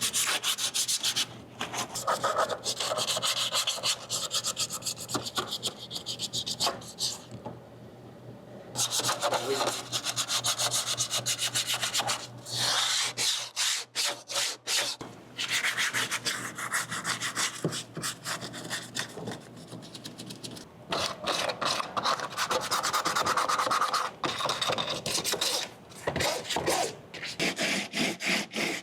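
Coarse 40-grit sandpaper rubbed back and forth by hand over a Jeep's floor, scuffing the surface so primer and bedliner will adhere. The scratchy strokes come in runs broken by a few short pauses.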